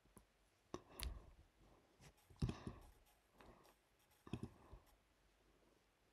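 About six faint, irregularly spaced clicks from a computer pointing device, over quiet room tone.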